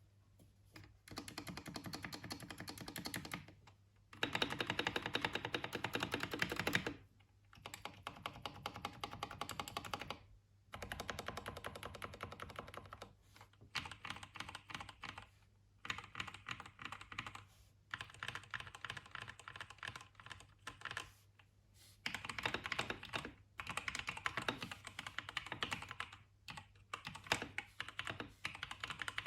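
Keychron K6 mechanical keyboard with PTFE-lubed Gateron Brown tactile switches, PE, foam and band-aid mods, typed on in fast runs of keystrokes broken by short pauses every few seconds. The loudest run comes about four to seven seconds in.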